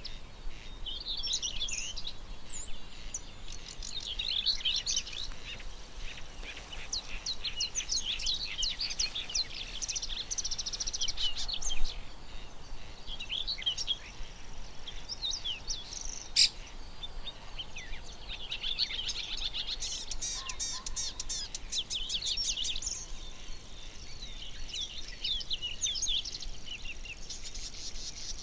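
Morning chorus of several songbirds, many overlapping chirps, trills and whistled phrases going on throughout. A sharp click about twelve seconds in, the loudest moment, and another a few seconds later.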